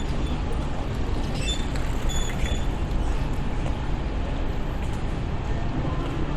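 City street ambience: steady low rumble of road traffic, with a few short high tones about one and a half to two and a half seconds in.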